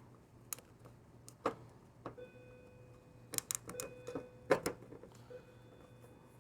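Scattered light clicks and taps from handling the oil filter housing cap and its rubber O-ring. A faint steady tone hums underneath from about two seconds in.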